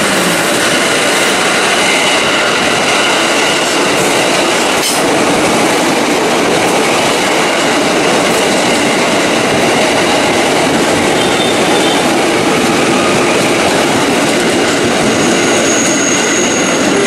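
JR 205 series electric commuter train running past close by along a station platform: steady wheel-on-rail noise with clickety-clack over the rail joints. A thin high squeal comes in near the end.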